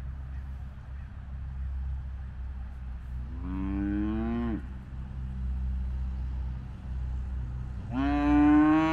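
Hereford cattle mooing twice: a call of about a second midway, then a louder one near the end that rises in pitch at its start. A steady low rumble lies underneath.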